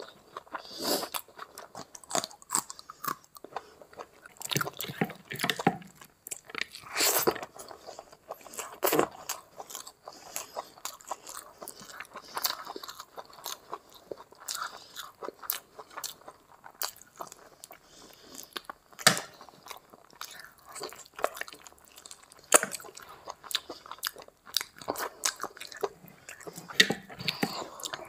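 Close-miked mouth sounds of someone eating curry and rice by hand: chewing with many irregular sharp clicks and wet bursts.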